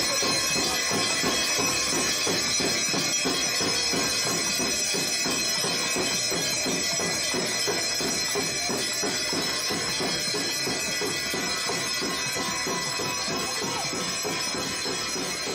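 Temple aarti percussion: a large laced hand drum beaten in a fast, even rhythm, about four to five strokes a second, with handbells ringing continuously over it.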